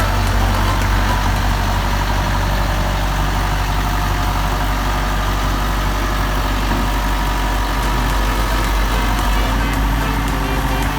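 Heavy-equipment engine idling steadily.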